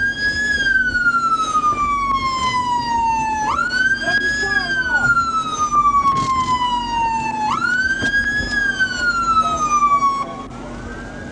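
Police car siren wailing over a steady low hum: each cycle rises quickly and then falls slowly over about four seconds, three times. Near the end the loud siren cuts out, leaving a fainter siren.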